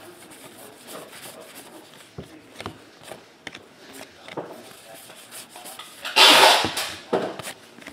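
A stack of 2014 Topps Gypsy Queen baseball cards being flipped through by hand, card after card slid off the front of the pile. The card stock gives soft rubbing and small flicks, with one louder swish about six seconds in.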